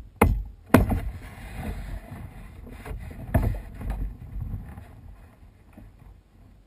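Kayak being paddled: water swishing and splashing off the paddle, with sharp knocks on the plastic hull, two close together near the start and one about three and a half seconds in, fading out over the last couple of seconds.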